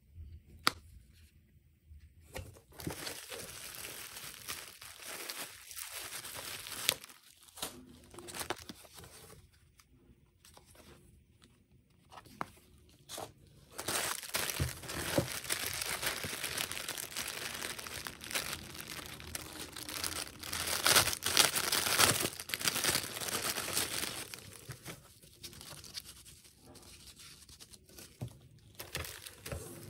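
Thin plastic packaging crinkling and tearing as hands rummage through and unwrap small items in a cardboard box. It comes in bouts with a few sharp clicks, and is loudest and most continuous through the middle third.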